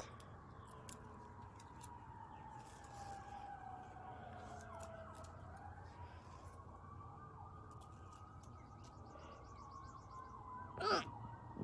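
Faint emergency-vehicle siren wailing slowly, its pitch falling for about five seconds, rising again and then falling. About eleven seconds in, a woman gives one short, loud hiccup.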